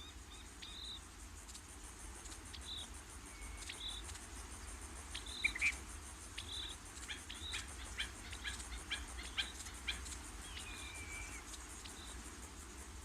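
Faint nature ambience: scattered short, high chirps and calls, with one longer call gliding down in pitch a little after ten seconds in, over a low steady hum.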